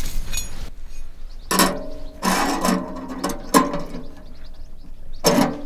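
Four metallic clanks, each ringing briefly after the strike.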